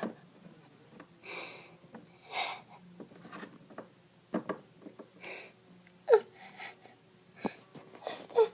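A child voicing a crying character: sniffles and breathy sobs, with a couple of short falling whimpers near the end.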